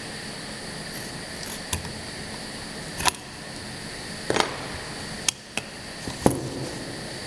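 Automatic through-hole component insertion machine running with a steady hum, broken by about five sharp, irregularly spaced clicks from its mechanism in the second half.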